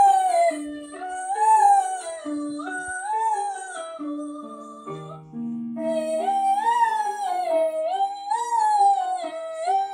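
A singer's vocal warm-up: a single held vowel sung in repeated rising-and-falling scale patterns, with lower accompanying notes stepping beneath it. The voice breaks off for a moment about halfway through, then starts again.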